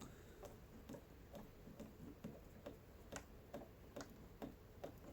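Faint, evenly spaced ticking, a little over two ticks a second, over near silence.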